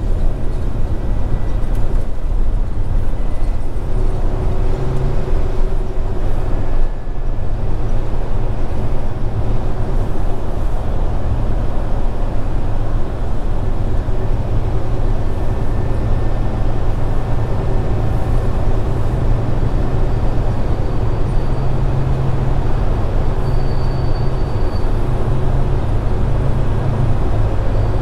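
Scania R410 truck's 13-litre inline-six diesel running steadily on the move, a constant low drone mixed with road and tyre noise.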